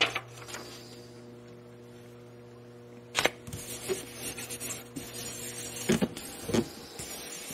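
Paper being handled and rubbed down by hand onto a wooden board, with a few sharp taps, the loudest about three seconds in. Under it runs a steady electrical mains hum that cuts off about six seconds in.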